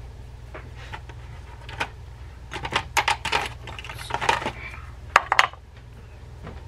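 Screwdriver and reel parts being handled and set down on a wooden workbench during reassembly of a spinning reel: a run of light clicks and clatter, loudest in two sharp clicks a little after five seconds in.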